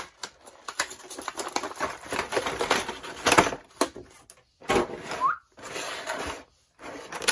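Clear plastic blister tray of an action-figure package being handled and pulled apart: irregular crinkling and clicking plastic, with a short squeak about five seconds in.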